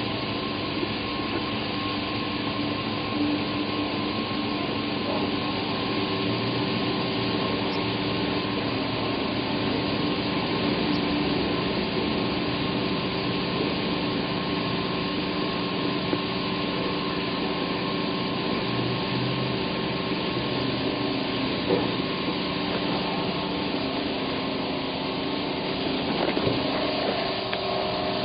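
Yamaha F225 four-stroke V6 outboard running steadily, a constant hum with several held tones over a hiss, without revving up or down.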